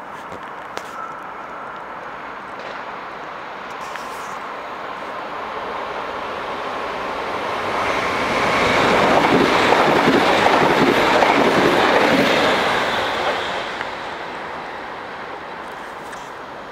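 Double-deck electric passenger train passing through the station without stopping: the noise of its wheels on the rails swells as it approaches, is loudest for a few seconds about halfway through, then fades as it pulls away.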